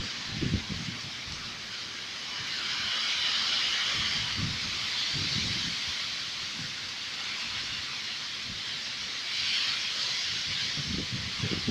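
Heavy tropical storm: a steady hiss of rain and wind that swells and eases over several seconds, with a few short low rumbles.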